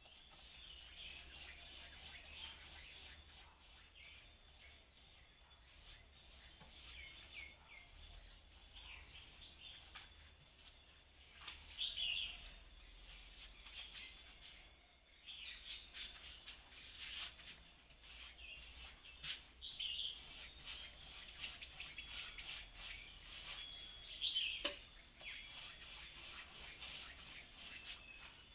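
Birds chirping and singing, short high calls repeating irregularly, with a few louder bursts of chirps. Scattered faint clicks and a rubbing sound run beneath.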